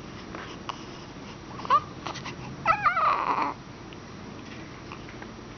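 A dog yawning with a high squeaky whine. There is a short rising squeak about two seconds in, then a longer whining yawn a second later that trails off in a breathy exhale.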